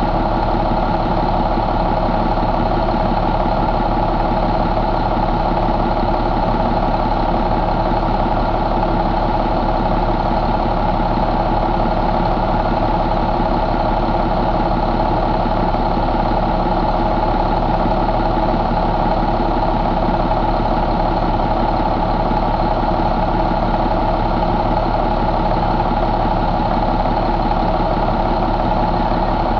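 International DT466E inline-six turbo diesel engine running steadily at idle, with no change in speed.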